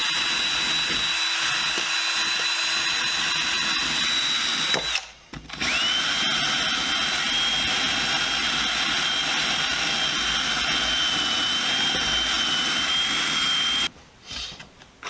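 Small high-speed rotary tool (Dremel) with a wire brush, scrubbing rust out of the crevices of a cast iron vise. It runs with a steady high whine, stops about five seconds in, then spins back up a moment later at a slightly lower pitch and runs until about a second before the end.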